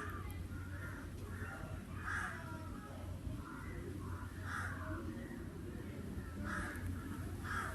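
Crows cawing over and over, a dozen or so short harsh calls, some coming close together, over a steady low hum.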